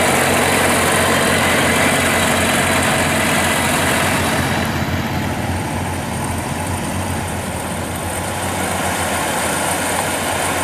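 Diesel engines of tracked rice-harvesting machines running steadily, a constant engine hum; about five seconds in the sound changes and grows duller.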